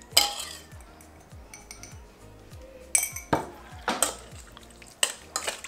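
Metal spoon clinking against a stainless steel mixing bowl while stirring chunks of raw fish, a handful of sharp, irregular clinks, over soft background music.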